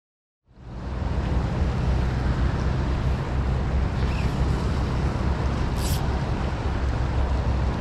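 Steady rush of moving river water with wind rumbling on the microphone, heavy in the low end, starting about half a second in; a faint brief click about six seconds in.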